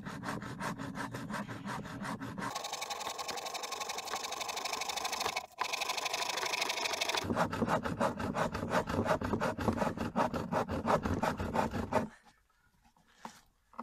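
Hand saw cutting through a thick dead log in quick, steady back-and-forth strokes, with a short break about halfway through. It stops about a second before the end.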